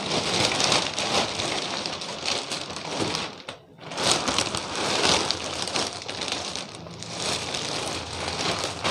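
Plastic courier mailer and polythene garment wrapping crinkling and rustling as they are handled and pulled open, with a short lull about three and a half seconds in.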